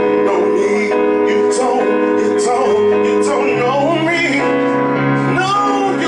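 A man sings with vibrato over his own digital piano accompaniment, which holds long sustained chords.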